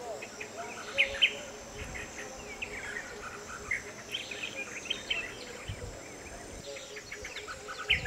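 Forest ambience: a steady high-pitched drone of insects, with many short bird chirps scattered throughout and two sharper, louder chirps about a second in.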